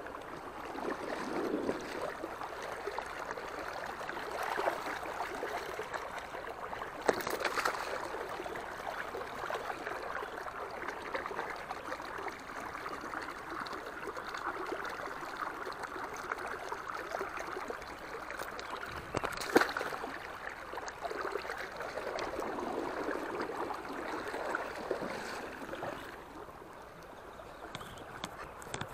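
Shallow river water rushing and splashing close by, swelling and easing, with a couple of sharp knocks about seven and twenty seconds in.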